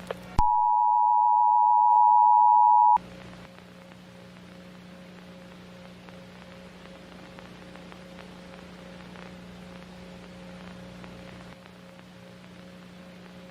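Emergency Alert System attention signal: a loud, steady two-tone beep near 1 kHz that lasts about two and a half seconds and cuts off suddenly. A quiet, low, steady hum follows.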